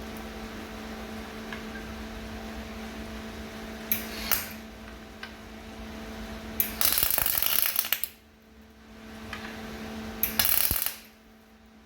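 MIG welder putting tack welds on the back of a classic Mini's door hinge to lock the threaded studs in place: two short bursts of crackling arc, the first about a second long and the second shorter, over a steady low hum.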